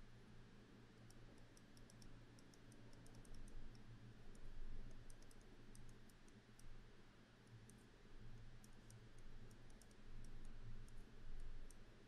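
Faint, irregular clicks and taps of a stylus on a tablet screen while writing by hand, over a low steady hum.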